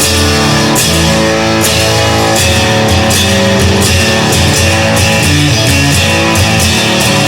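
Instrumental rock music: guitar playing held chords over drums with regular cymbal hits, no singing.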